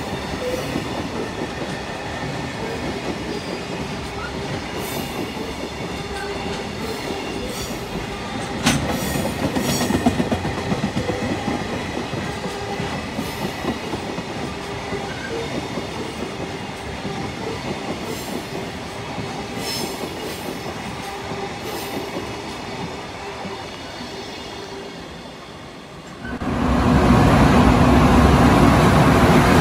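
Empty container flat wagons of a freight train rolling past, a steady rolling noise with wheels clicking over rail joints, the sharpest click about nine seconds in, easing off slowly toward the end. About three seconds before the end it cuts to a much louder EH500 electric locomotive and its container wagons running past in a covered station.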